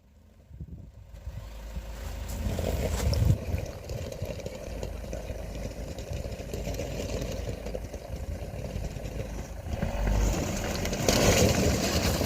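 SUV engine running with a low rumble. It swells up over the first couple of seconds and gets louder again about ten seconds in.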